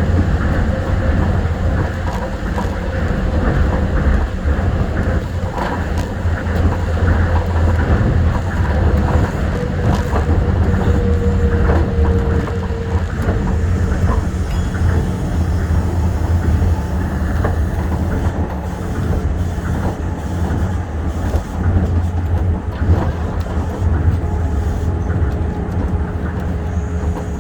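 Tokyo Monorail 1000-series train running along the line: a steady low rumble of its rubber tyres on the guideway beam, with a faint steady whine and scattered light clicks.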